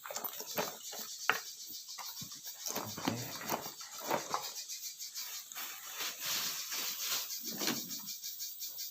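Irregular scuffs, knocks and steps of people clambering over rock, over a steady, fast high-pitched ticking chirr.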